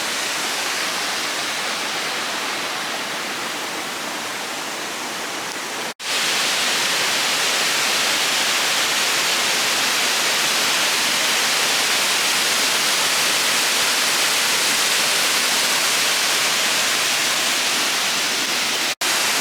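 Waterfall in heavy flow: a steady rush of a lot of falling water. The sound drops out briefly about six seconds in and again near the end, and after the first dropout it is a little louder and brighter.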